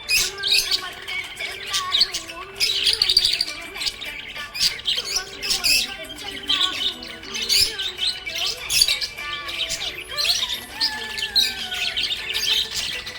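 Several budgies chirping and chattering without pause: a dense stream of short, high, overlapping chirps, with a few falling whistled glides near the end.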